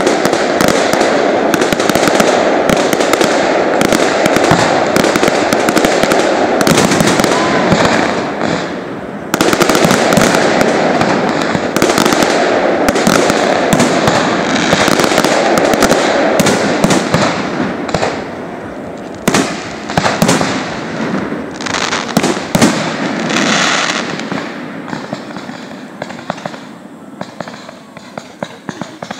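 Large fireworks display: a dense, continuous crackling of many bursting shells, with a sudden louder surge about nine seconds in. It thins out to scattered bangs and fades over the last few seconds.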